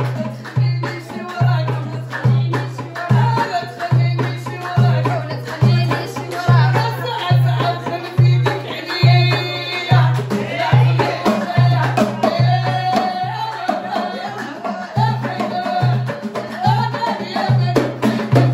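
Moroccan folk music played live: a drum beats a steady low pulse about twice a second, with singing over it.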